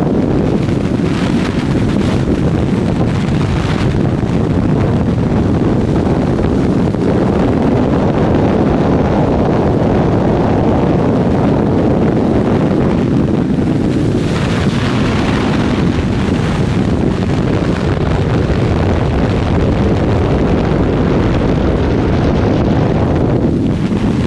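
Motorcycle riding at road speed: heavy wind rushing over the camera microphone, with the engine running underneath, the hiss swelling twice, briefly near the start and again past the middle.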